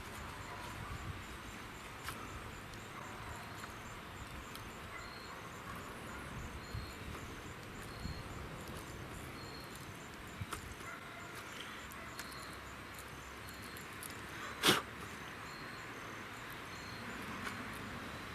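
Insects chirping in a steady, evenly repeating pulse over a background hiss, with a few small clicks and one sharp click about fifteen seconds in.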